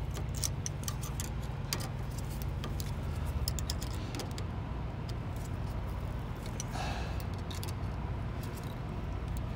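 Scattered light clicks and small metallic rattles of hands working a makeshift wrap onto an exhaust pipe, over a steady low hum.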